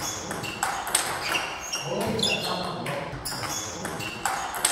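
Table tennis ball in a rally, clicking sharply off the rubber paddles and bouncing on the table, several quick irregular hits a second, each with a short bright ring.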